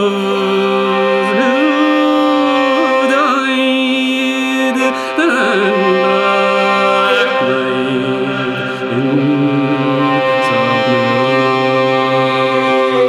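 Fiddle playing a slow air with no singing: a sliding, bending melody over steady held drone notes.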